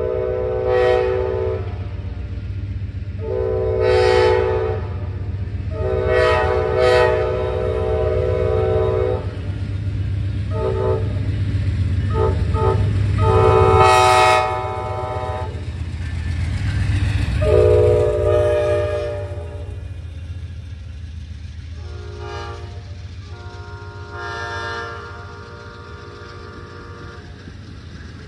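Multi-note locomotive air horn sounding a series of long and short blasts over the low rumble of a passing train. The last blasts are fainter and the train's rumble fades toward the end.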